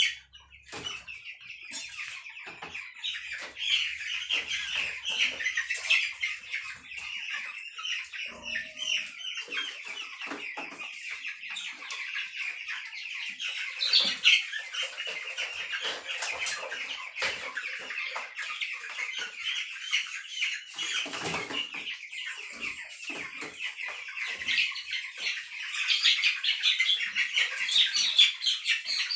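A flock of two-week-old broiler chicks peeping constantly in a dense high chorus, with wing flapping and knocks as the birds are caught from the pen. The peeping grows louder briefly about halfway through and again near the end.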